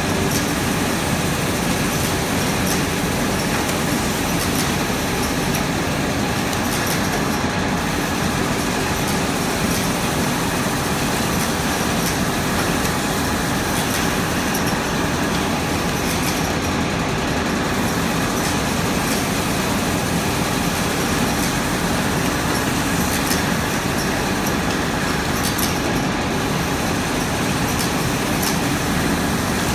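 Automatic book sewing machine running among factory machinery: a loud, steady mechanical din with faint clicks running through it.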